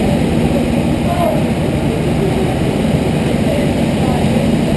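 Several go-kart engines idling together in a steady low drone, with faint voices behind them.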